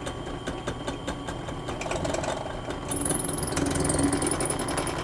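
Power drill running steadily, its bit boring into a broken steering gearbox bolt, with a high whine for a stretch partway through.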